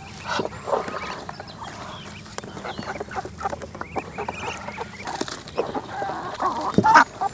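Chickens clucking in short, scattered calls, the loudest one near the end, with light clicks and squelches of hands mixing wet chopped greens in a plastic tub.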